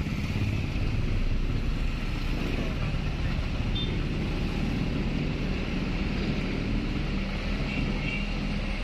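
Steady running noise of a moving van, heard from inside the cabin: a constant low engine hum under road noise.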